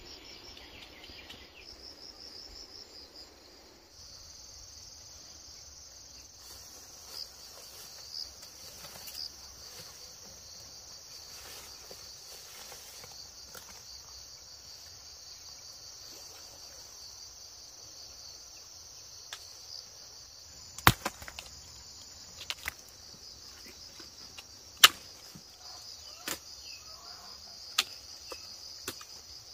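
Steady high-pitched chirring of insects, with a few sharp clicks or snaps in the last third.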